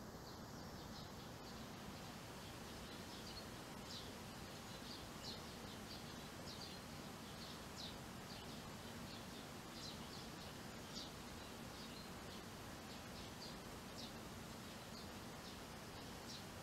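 Faint, short high chirps of young Eurasian tree sparrows, coming irregularly every half second to second or so over a steady outdoor hiss.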